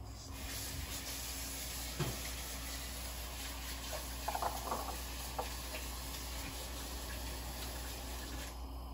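Kitchen tap running in a steady hiss while hands are washed under it, with a few sharp clatters around the middle, then shut off abruptly near the end.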